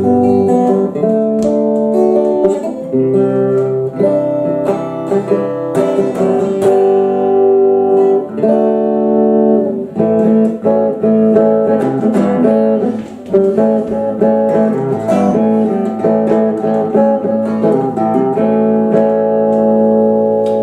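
Guitar played through a 1961 Fenton Weill Cornet valve amplifier: strummed chords and picked notes ring on. The amp still has its old valves, some in it for about 40 years.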